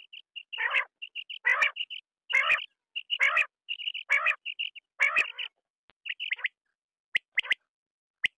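Quail calling: quick runs of short, high chirps broken by louder rasping notes about every 0.8 s. The calls thin out to a few sharp, clicky notes near the end.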